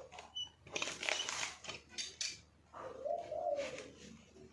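A dove cooing: one smooth, arching coo about three seconds in, with a short rustling noise about a second in.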